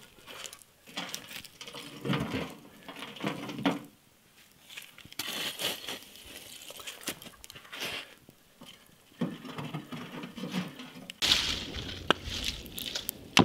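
Metal shovel scraping and clinking in short, irregular strokes, working at the fire around the cooking tin. Near the end a steadier rushing noise comes in.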